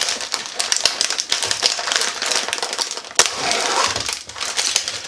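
Plastic cookie package crinkling and crackling as it is torn and peeled open by hand, with one sharp crack about three seconds in.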